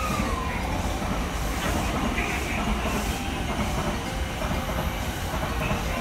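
JR commuter electric train pulling out of a station platform and gathering speed, its cars rumbling past steadily.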